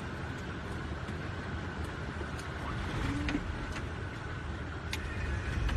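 Cockpit noise of a Boeing 747 at touchdown in a strong crosswind: a steady low rumble, with a few sharp rattles and clicks as the flight deck shakes.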